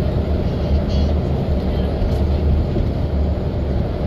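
Steady low rumble of engine and road noise inside a moving city transit bus.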